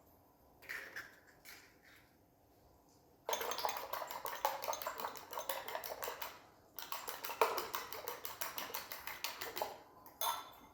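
Kitchen utensils clinking quickly and rhythmically against dishes in two runs of about three seconds each, with a brief break between them. A few light knocks come earlier, and a sharper knock comes near the end.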